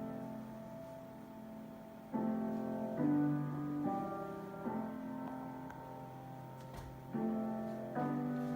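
Slow piano music: sustained chords, a new one struck every one to two seconds and left to ring.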